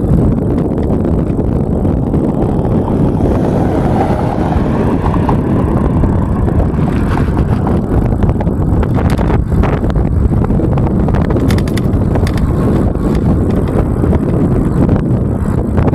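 Steady rush of riding an e-bike over pavement: wind buffeting the microphone over tyre and road rumble, with a few sharp rattles about ten to twelve seconds in.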